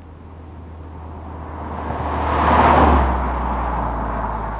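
Mazda MX-5 ND with an Ulter-Sport centre-exit sports exhaust, its bypass valve closed, driving past: the engine and exhaust note grows louder to a peak nearly three seconds in, then fades away.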